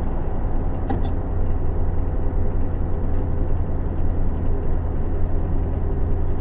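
Steady low engine and road drone of a truck cruising at highway speed, heard from inside the cab, with a small click about a second in.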